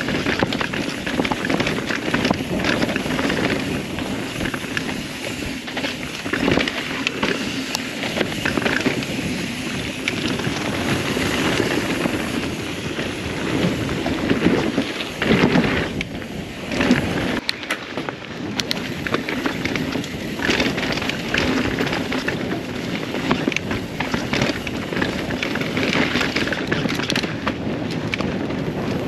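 Mountain bike ridden fast down a dirt downhill trail: wind buffeting the microphone and tyres rolling over dirt and rocks, with many short clicks and rattles from the bike.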